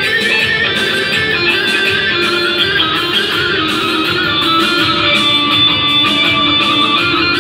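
Loud, continuous Kurdish halay dance music from an amplified band: a plucked-string melody over a steady, even beat.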